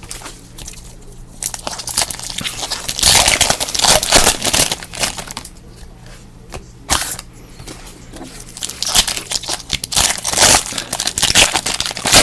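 Crinkling and tearing of trading-card pack wrappers, in irregular bursts, as packs are handled and torn open.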